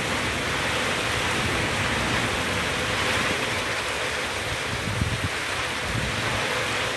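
Heavy downpour falling steadily in sheets, with strong gusting wind. A couple of low buffets of wind against the microphone about five seconds in.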